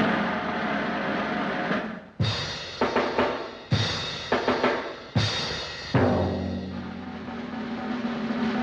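Instrumental boogie-woogie swing band music, with loud drum hits every half-second to a second over sustained chords.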